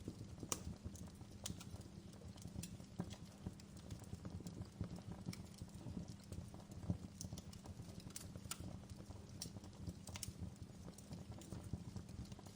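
Wood fire crackling in a fireplace: irregular sharp snaps and pops, a few louder than the rest, over a low steady rumble of the burning fire.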